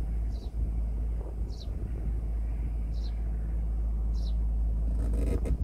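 Steady low wind rumble on the microphone, with a small bird repeating a short high falling chirp about every second and a bit. Near the end comes a brief, sharp crackling burst.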